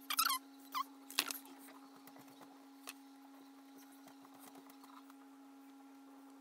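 Needle-nose pliers working a short length of copper wire: one sharp click about a second in, then a smaller click and scattered faint ticks and rustles of handling. A steady low hum runs underneath.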